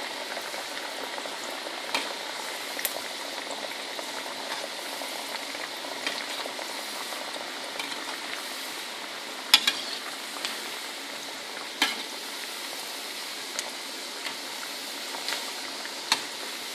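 Mutton keema kebabs deep-frying in hot oil in a steel pot: a steady sizzle. A utensil turning them clinks sharply against the pot a few times, loudest about ten and twelve seconds in.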